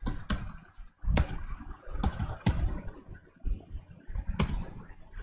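Typing on a computer keyboard: about seven separate keystrokes with uneven pauses between them.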